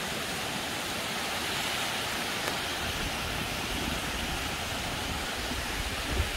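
Steady rush of flowing mountain-stream water, an even hiss with no let-up, with a brief low thump near the end.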